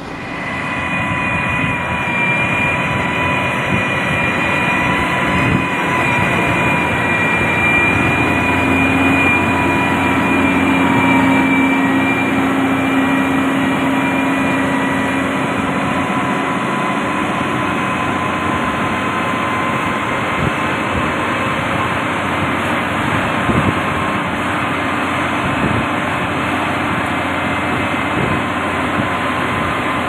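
Heavy road-construction machinery running steadily under load: engine noise with a steady high whine over it and a low hum that swells for a few seconds in the middle.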